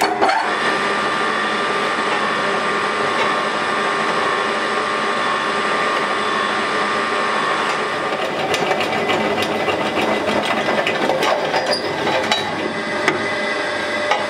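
Pillar drill running, its twist bit cutting a hole through folded steel plate: a steady motor hum with a scraping cut, and more clicking and scraping from about eight seconds in.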